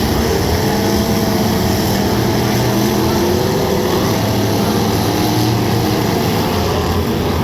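Demolition derby car engines running and revving, their pitch wavering up and down over a steady loud din.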